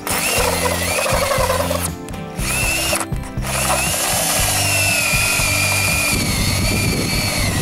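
Power drill turning a hole saw as it cuts through PVC well casing. It starts abruptly with a high whine, stops briefly twice in the first few seconds, then cuts steadily.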